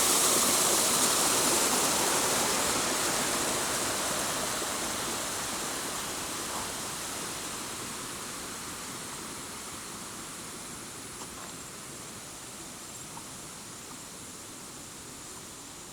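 Rushing water of a jungle waterfall, a steady even roar that grows steadily fainter, with a few faint ticks in the later part.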